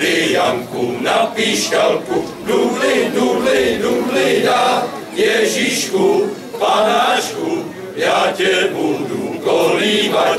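Male voice choir singing a Czech Christmas carol, phrase after phrase with short breaths between.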